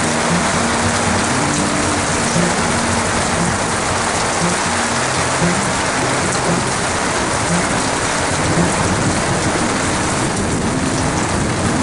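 Heavy rain pouring down steadily, with runoff streaming off the edge of the roof overhead.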